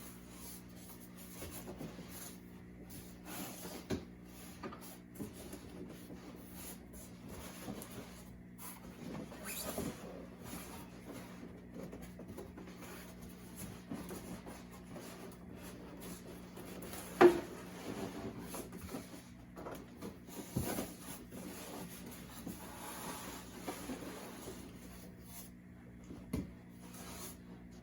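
Cardboard box and packaging being handled while a large foam model airplane is lifted out: irregular scrapes and small knocks over a faint steady hum, with one sharp knock a little over halfway through, the loudest sound.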